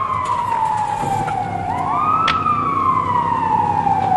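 Emergency vehicle siren wailing: its pitch falls slowly, rises again about two seconds in, then falls slowly once more. A single sharp click sounds just after the rise.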